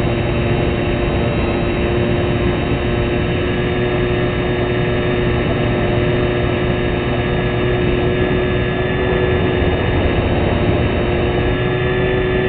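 Motor and propeller of a small fixed-wing UAV running at a steady pitch, with wind rushing over the airframe, heard from a camera mounted on the aircraft.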